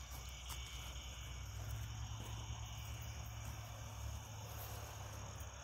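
Steady chorus of night insects, several high trills held without a break, over a low rumble on the microphone that swells about a second and a half in.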